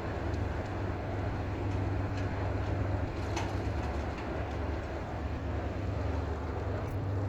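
Steady low engine hum under a constant outdoor background, with a few faint clicks.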